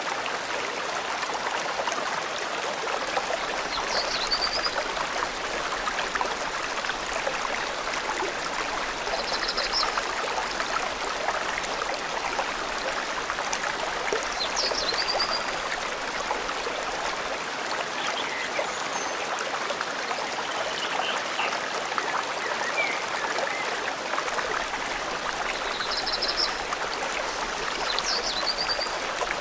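Forest stream flowing steadily, with short, high bird chirps every few seconds.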